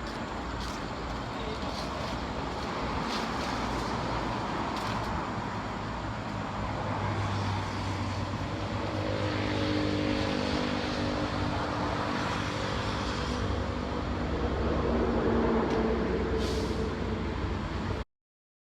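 Road traffic passing close by: a steady wash of tyre and engine noise, with a heavy vehicle's engine hum coming in about nine seconds in and swelling over several seconds. The sound cuts off abruptly near the end.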